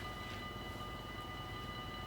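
Dutch level-crossing warning bell ringing steadily, a continuous high ringing tone, over a low rumble.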